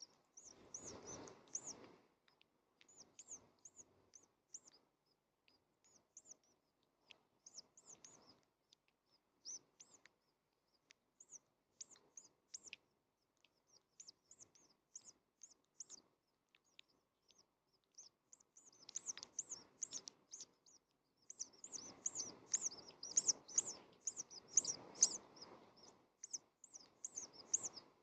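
High, quick chirps from house finches at the nest while the male feeds the young: scattered single chirps at first, then dense, louder runs of rapid chirping a little over two-thirds of the way in and again toward the end.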